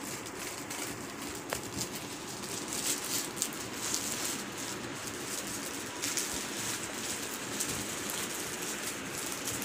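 Cotton suit fabric rustling as pieces are unfolded and spread one over another by hand, with irregular crisp swishes.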